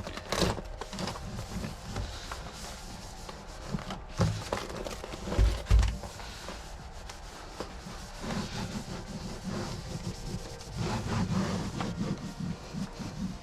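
Aluminium-faced sound-deadening sheet being laid and smoothed onto a car's interior panel by hand: irregular rubbing and crinkling, with two short low thumps about five and a half seconds in.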